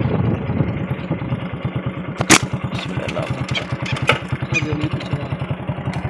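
Motorcycle engine idling with an even low putter of about ten beats a second, fading toward the end. A sharp click comes a little over two seconds in.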